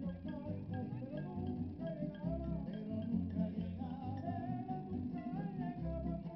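Live band music: guitar and bass under a sung melody.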